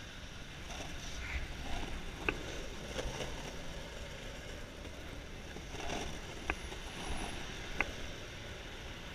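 Longboard wheels rolling over city asphalt, a steady rumble, with three sharp clicks about two, six and a half, and eight seconds in.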